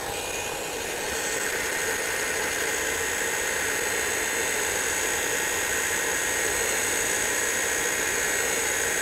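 Milwaukee heat gun running steadily, its fan blowing a hiss of hot air with a faint whine, shrinking heat-shrink tubing onto a broken glasses arm.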